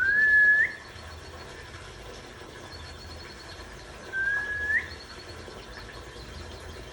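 A caged songbird giving two clear whistled notes about four seconds apart, each under a second long, held level and ending in a quick upward flick. Faint rapid high twittering runs between them.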